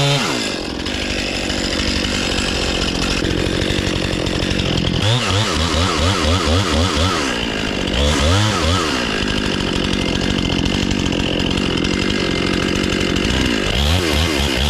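Two-stroke chainsaw running at full throttle, cutting into a standing tree trunk to fell it. The engine note wavers rapidly at times as the chain bites into the wood.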